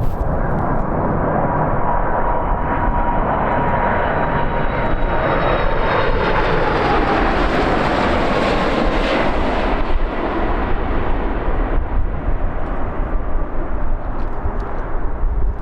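Four-engine Boeing 747-400 jet passing the microphone, its engine noise swelling to a peak about halfway through and then fading, with a whine that slowly falls in pitch. Strong crosswind buffets the microphone throughout.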